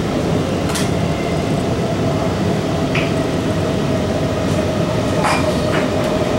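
Cabin noise of an SMRT R151 (Alstom Movia) metro car running on the East-West Line: a steady rumble of wheels on rail with a faint steady whine. A few short clicks sound through it.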